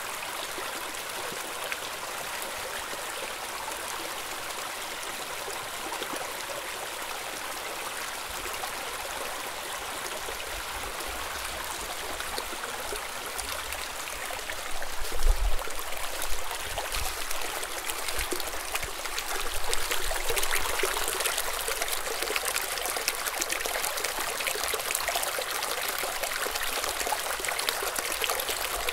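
A small stream running and trickling steadily. A few low thumps come about halfway through, and after them the water is a little louder and brighter.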